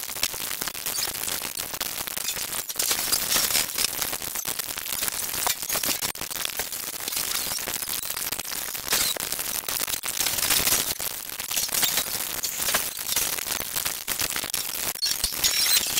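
An animated TV soundtrack of dialogue, music and effects sped up many dozens of times, so that it runs together into a steady high hiss packed with rapid clicks.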